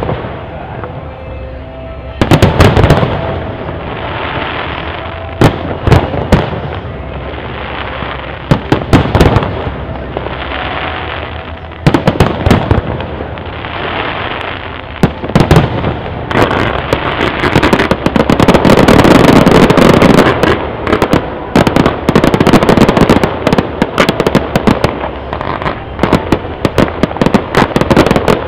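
Fireworks display: aerial shells bursting with sharp, loud bangs every few seconds, then a dense run of rapid crackling bursts through the second half.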